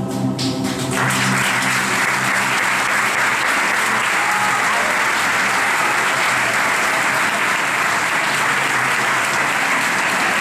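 An audience applauding steadily after a choir. The choir's final held chord dies away about a second in.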